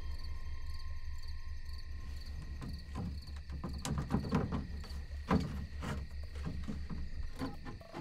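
Crickets chirring steadily over a low pulsing hum, and from about two and a half seconds in a run of knocks, scrapes and creaks as the wooden planks of a coffin lid are handled and worked open.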